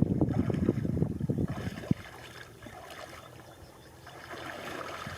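Water and mud sloshing and splashing, busy for about the first two seconds with a sharp knock, then dying down to a faint trickle.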